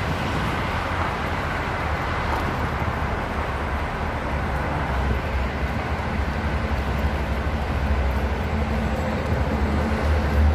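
Wind rumbling and buffeting on a phone microphone over a steady haze of outdoor traffic noise.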